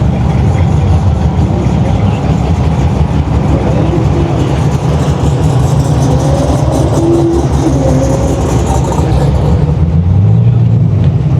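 Car engine running loudly close by, a steady deep sound with no breaks.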